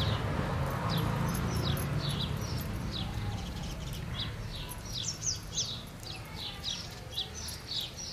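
Small birds chirping over and over, short falling chirps a few times a second, busier in the second half. A low rumble runs underneath for the first few seconds and then fades.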